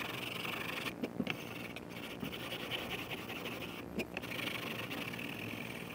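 Light scraping and rubbing of a long aluminium fret-levelling beam handled over the frets of a guitar neck, with a few small knocks.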